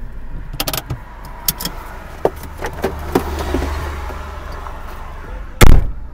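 Car cabin sounds as the driver gets out: a run of small clicks and knocks over a low steady engine hum, then one loud thump near the end as the car door is shut.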